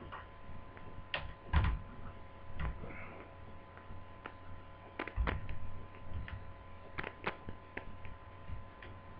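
Irregular small clicks and taps of a screwdriver and plastic laptop screen bezel as bezel screws are driven back in, about a dozen in all, over a steady faint electrical hum.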